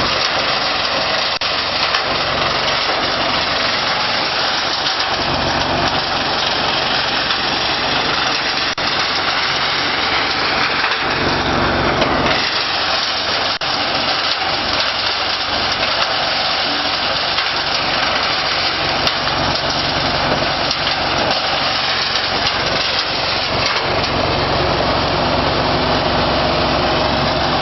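Electric-motor-driven grass and straw cutter running, a loud, steady whirring rush as chopped material is blown out of its discharge chute.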